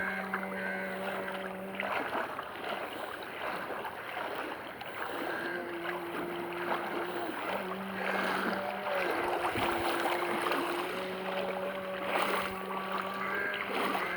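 Water sloshing and splashing as someone wades through floodwater, over a steady mechanical hum that drops out and shifts pitch several times.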